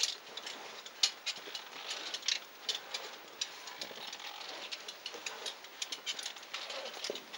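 Irregular metallic clicks and ticks of rope-climbing gear, ascender cams and carabiners catching on the rope, as a caver climbs a rope up a well.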